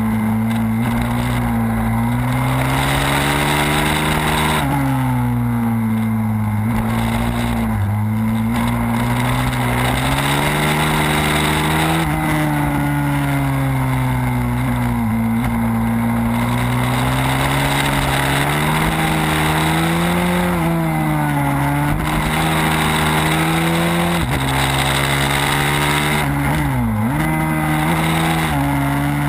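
Pit bike engine, heard from a camera mounted on the bike, revving up and dropping back again and again as it is ridden hard around a circuit. The revs fall briefly a few times and dip sharply near the end when the throttle is closed for a corner.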